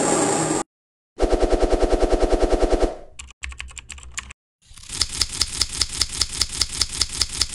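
Rapid knife chopping on a board, laid in as edited sound effects: a noisy stretch cuts off abruptly, then, after a silence, runs of quick, even strokes, about eight a second, broken by sudden gaps.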